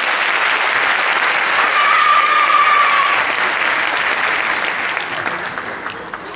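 Audience applauding after a stage performance. A single held high note sounds above the clapping about two seconds in, and the applause dies away near the end.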